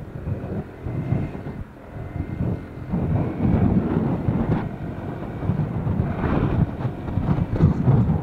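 Wind buffeting the microphone with road and engine noise while riding a Honda ADV150 scooter; the rush grows louder about three seconds in.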